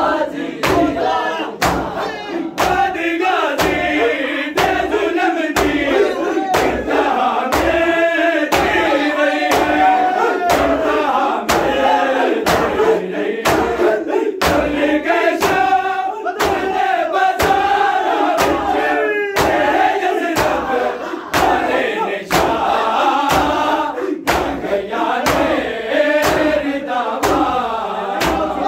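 A crowd of men chants a mourning lament together while bare hands slap bare chests in a steady unison beat, a little under two slaps a second: Shia matam (ritual chest-beating).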